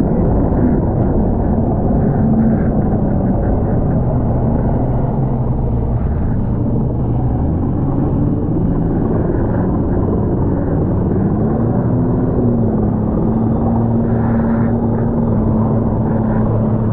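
Jet ski engine running at speed, a steady drone under a heavy rush of wind and spray on the microphone. The engine note rises briefly about twelve seconds in, then holds steady.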